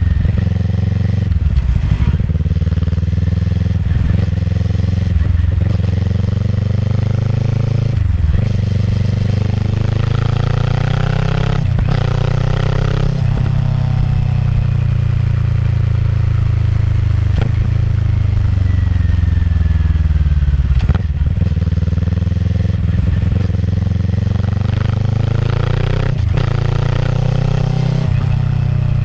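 Kawasaki ER-6f's 649 cc parallel-twin engine running through a Yoshimura full-system exhaust while being ridden. The revs rise and fall again and again, with several short breaks, as it goes through the gears.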